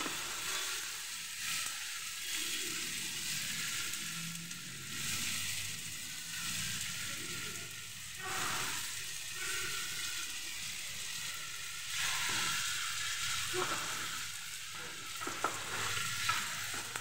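Chopped onion, carrot and tomato masala sizzling in a non-stick frying pan as it is stirred with a spatula, with cut bread pieces stirred in partway through. A few sharp spatula knocks come near the end.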